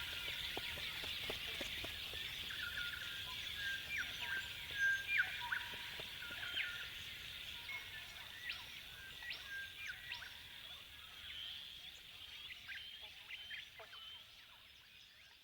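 Chorus of Australian birds chirping and whistling, many short calls and quick rising notes over a steady high background hiss, fading out gradually.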